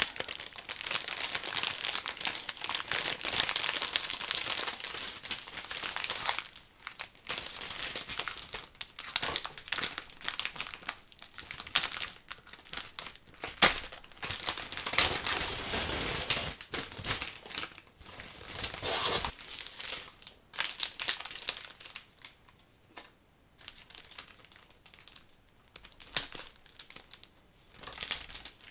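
Clear cellophane bouquet wrapping being handled and pulled off the flowers: dense crinkling and crackling, with one sharp scissor snip about halfway through. Over the last third it turns to sparser, quieter rustles.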